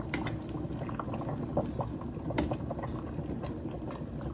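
Pot of sinigang broth with vegetables bubbling at the boil while a metal ladle stirs it, with a few light clinks of the ladle against the stainless steel pot, the sharpest about two seconds in.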